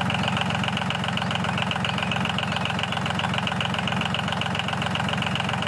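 Small diesel tractor engine running steadily with a rapid, even chugging.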